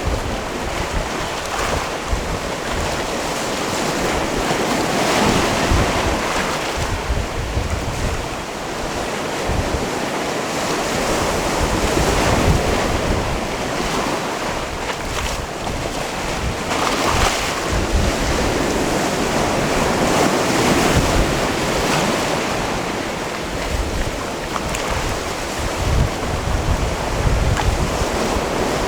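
Sea waves washing onto a rocky shore: a steady rush of surf that swells and eases every few seconds, with wind rumbling on the microphone.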